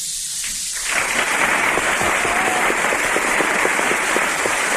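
Studio audience applauding, starting about a second in and holding steady as a dense patter of many hands clapping.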